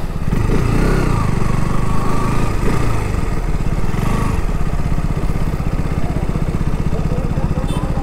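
A KTM RC sport motorcycle's engine running at low revs as the bike rolls slowly over a wet paved lot, then settling to a steady idle about halfway through.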